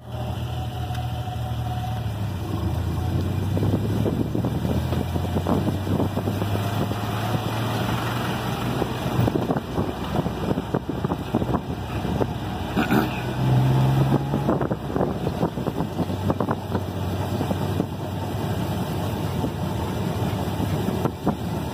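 Tuk-tuk's small engine running as the three-wheeler drives along, a steady low hum with knocks and rattles from the open cab. The engine note rises briefly about thirteen seconds in.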